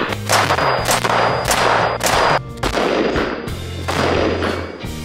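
A string of rifle shots from an AR-15-style rifle, fired in quick succession, each shot with a sharp crack and a ringing echo, over background music with a steady bass line.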